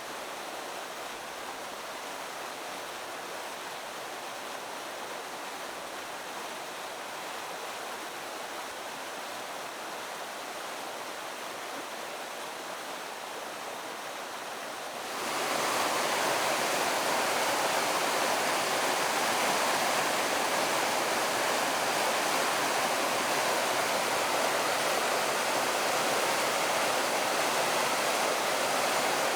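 River waterfall, water rushing over rocks in a steady hiss that grows suddenly louder and brighter about halfway through.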